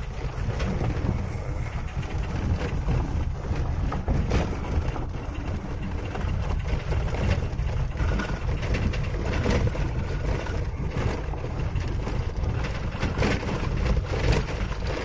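Road noise inside a vehicle driving over a corrugated gravel road: a steady low rumble of tyres and suspension, with frequent short rattles and knocks.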